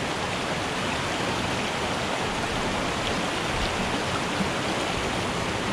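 Small mountain stream rushing over rocks and boulders: a steady sound of running water.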